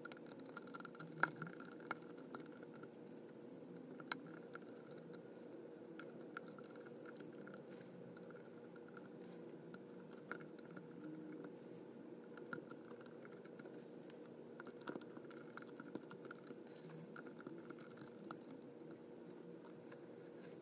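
Faint, irregular light ticks and crackles of white sand being scattered onto a surface, over a steady faint hum.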